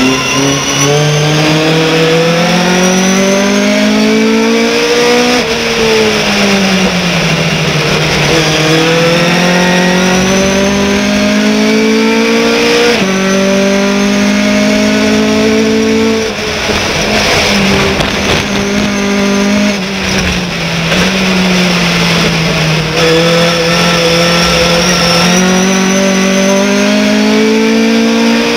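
Race pickup truck's engine heard from inside the cockpit under full racing load. The pitch climbs as it accelerates, drops sharply at each gear change, and sags gradually as it slows for corners, over a wash of wind and road noise.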